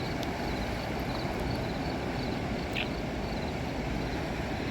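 Steady rush of a river running high and overflowing its banks after a dam release.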